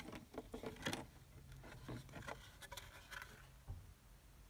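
Scattered light clicks and scrapes of the cut-open plastic case of a car jump starter being handled and its two halves fitted back together.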